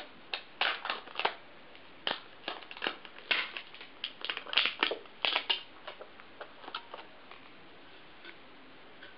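Stiff plastic packaging crinkling and crackling as it is handled, in irregular bursts. It is busiest for the first five or six seconds, then thins to a few scattered crackles.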